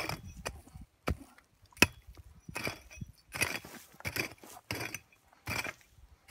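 Prospector's hand pick striking and scraping into hard, stony soil, a stroke roughly every 0.7 seconds, with two sharp knocks in the first two seconds where the blade hits rock or hard ground.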